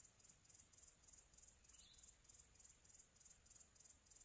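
Near silence but for faint, high-pitched insect chirping in the grass, pulsing evenly about five times a second.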